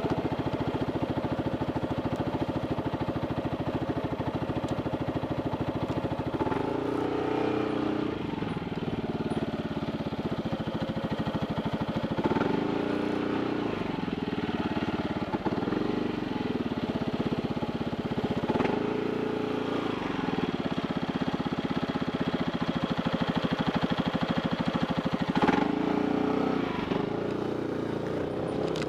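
Motorcycle engine running as the bike rides off at low speed, its note rising and falling several times with the throttle.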